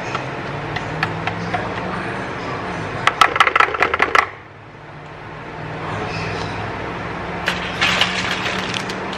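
A silicone whisk scraping and tapping against a mixing bowl and a metal baking pan as cake batter is scraped out. It gives a quick run of clicks about three seconds in and more scattered clicks near the end, over a steady low hum.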